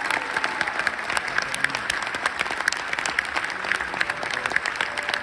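Applause from many people: dense, steady clapping.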